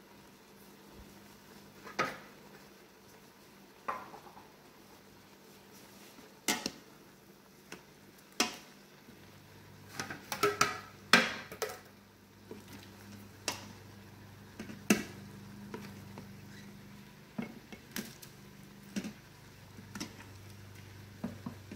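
A serving spoon knocking and scraping against the stainless steel inner pot of an Instant Pot as browned beef chunks are scooped out: irregular clinks and knocks, some with a short metallic ring, busiest about ten to twelve seconds in. A faint steady low hum comes in about nine seconds in.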